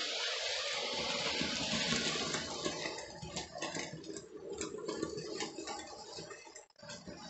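Hornby OO-gauge model train running along the layout track: a steady rushing rumble of wheels and motor, with scattered rapid clicks from about halfway, growing quieter toward the end as the train moves away.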